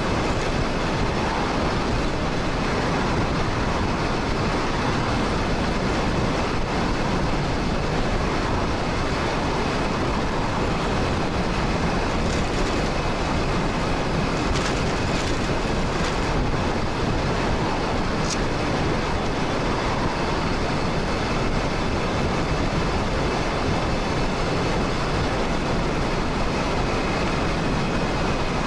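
Steady rush of wind on the microphone and road noise while riding a 2000 W e-bike at speed, even in level throughout, with a few faint short ticks about halfway through.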